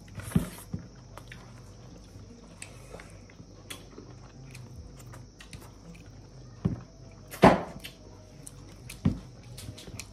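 Someone eating rice by hand: quiet chewing and fingers working food on a plate, with a few sharp clicks and knocks, the loudest about seven and a half seconds in, over a faint steady low hum.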